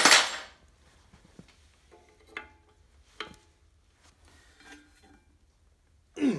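Steel hand wrenches clattering together as one is picked out, then a few light metallic clinks as a wrench is set on the brake hose fitting behind a drum brake backing plate.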